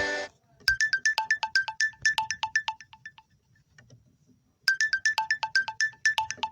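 Lenovo A5 smartphone ringtone: a quick run of short, bright notes hopping between a higher and a lower pitch, lasting about two seconds. It pauses, then starts again about four seconds in. A guitar-like tone from the previous ringtone cuts off right at the start.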